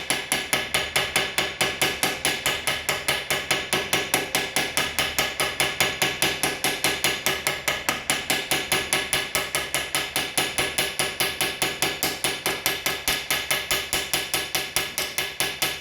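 Rapid, steady light hammer taps on the end of a 3 mm mild-steel rod, about five a second, each with a short metallic ring. The rod end is being peened over and squashed down into a rivet head.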